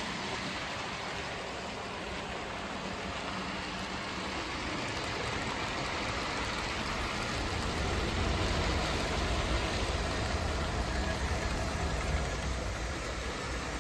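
OO gauge model trains running on the track: a steady whirring rumble of motors and wheels on rail, growing louder about halfway through as a locomotive passes close by.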